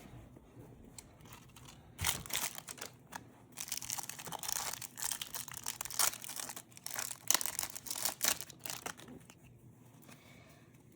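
Foil trading-card pack wrapper crinkling and tearing as it is opened. It is a run of irregular crackles from about two seconds in until near the end.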